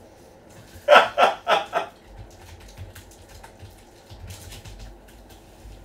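A short burst of laughter, four quick 'ha' pulses about a second in, followed by faint scattered clicks and rustling.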